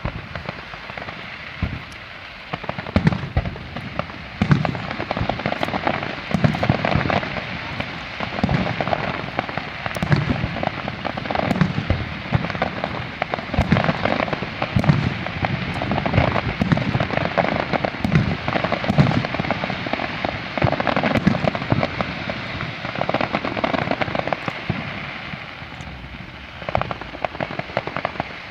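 Aerial fireworks display: a rapid, irregular run of shell bursts with deep booms, and continuous crackling between them, easing off near the end.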